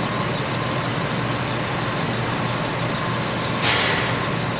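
Steady room tone: an even background hiss and hum with no speech. About three and a half seconds in, a brief sharp burst of hissing noise stands out and dies away within a fraction of a second.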